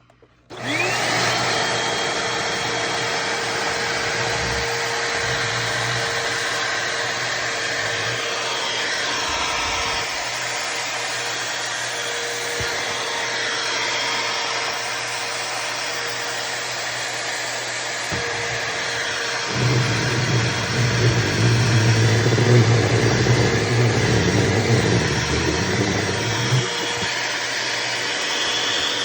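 A small vacuum cleaner switches on, its motor whine rising as it spins up, then runs steadily. For several seconds past the middle its sound turns louder and rougher as a shirt is sucked against the nozzle, then it settles back to the steady drone.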